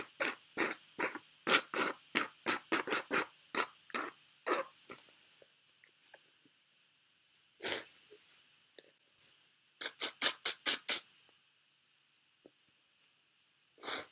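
A woman sniffling through a runny nose: short, sharp sniffs in quick runs of about three a second, with a few single sniffs between the runs.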